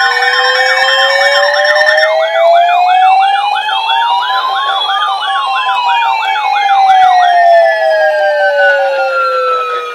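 Several weather alert radios sounding their alarms together, set off by the required weekly test signal. Over one another run a slow electronic siren wail that rises for about five seconds and then falls, a fast warbling yelp that stops about seven seconds in, and a steady beeping that stops near the end.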